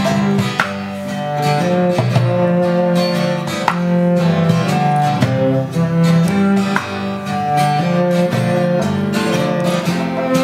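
Acoustic guitars strumming with a cello bowing long held notes underneath, an acoustic folk-style ensemble playing live.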